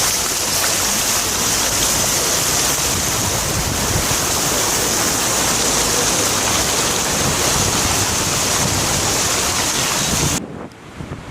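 Storm wind and heavy surf making a loud, steady rush, with the wind buffeting the microphone. It cuts off suddenly near the end.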